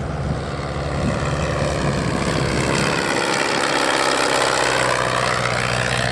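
Klemm L-25H ultralight replica's engine and propeller running steadily through a low pass. It grows louder as the aircraft comes by and is loudest about four to five seconds in.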